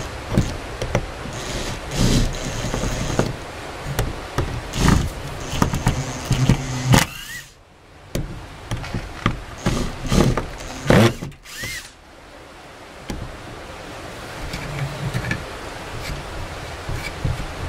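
Cordless drill-driver running in short bursts as it tries to back screws out of a wooden bracket on a plank wall, with knocks between the bursts. The bursts stop after about twelve seconds.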